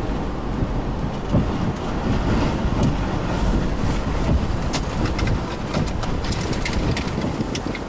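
Strong wind gusting over the microphone with a deep rumble, close to a tornado. From about halfway in, scattered sharp taps of something striking nearby.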